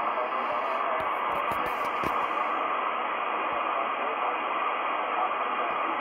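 Trio R-1000 shortwave receiver's loudspeaker giving steady hiss and static of the 80-metre band, heard through the set's narrow audio, with no clear voice coming through.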